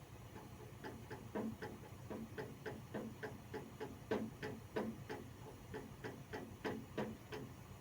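Ratchet of a jack clicking steadily, about four clicks a second, as the heavy truck gearbox is lowered.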